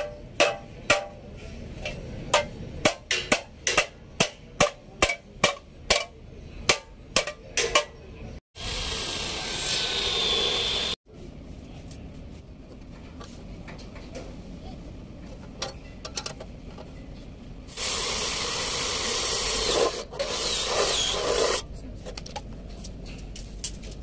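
A hammer strikes galvanized sheet steel in a quick series of about eighteen metallic blows, roughly two a second, folding over the flaps of a 100 × 100 mm cable-trunking end cap. Later come two stretches of a few seconds each of a cordless drill boring the sheet.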